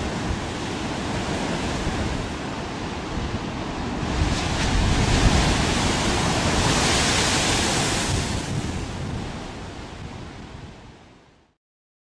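Ocean surf crashing against a rocky shore: a steady rush of breaking waves that swells about four seconds in as a large wave bursts into spray, then fades out to silence near the end.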